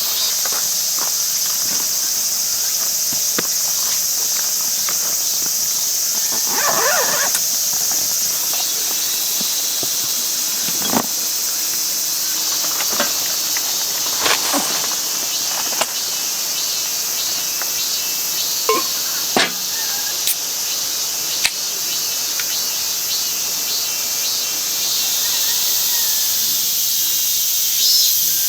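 Steady high-pitched insect chorus, with scattered light knocks and clicks throughout.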